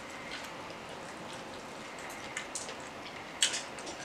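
Quiet eating of fried chicken: a few short, wet smacks and clicks from chewing and picking at the meat, the loudest about three and a half seconds in, over a faint steady hiss.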